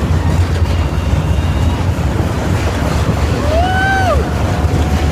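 Heavy wind buffeting a phone microphone on a moving roller coaster car, a steady low rumble. About three and a half seconds in, a rider lets out one drawn-out call that rises and falls in pitch.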